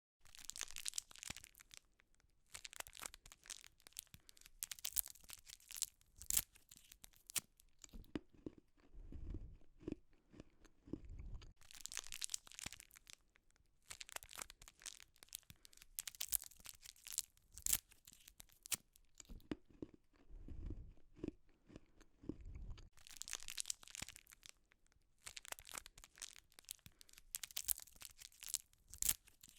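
Candy wrapper crinkling and tearing in repeated spells as the candy is unwrapped, with two stretches of crunchy chewing in between.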